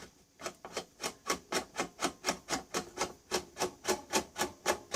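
Hollow-shaft nut driver turning the nuts off a panel meter's long mounting studs: a regular run of short rasping strokes, about four a second.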